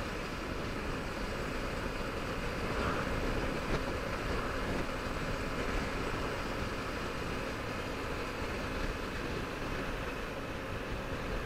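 Steady riding noise from a Yamaha 125 cc motorcycle cruising on the highway: the single-cylinder engine's drone blended with wind rush over the camera microphone.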